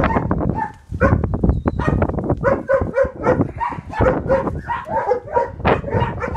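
A dog barking and yapping in a quick, irregular string of short calls, over the rumble of strong wind on the microphone.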